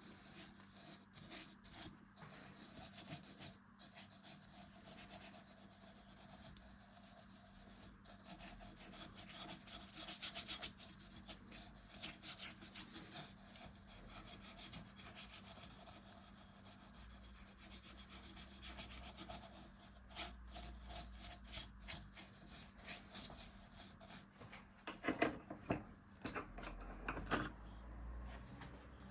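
Hand tool scraping and rubbing on beech wood in quick, repeated short strokes, with a few louder strokes a few seconds before the end.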